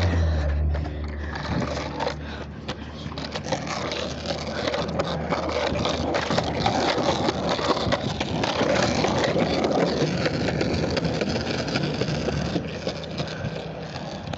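Skateboard wheels rolling over rough pavement: a steady grinding rumble with frequent small clicks and rattles. A low engine hum fades out in the first second.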